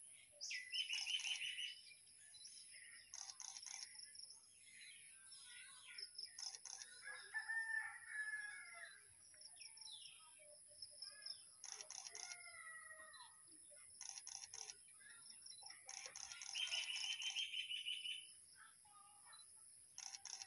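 Several birds calling and chirping: quick trilled phrases near the start and again towards the end, with longer pitched calls, one like a crowing call, in between, over a steady faint high hiss.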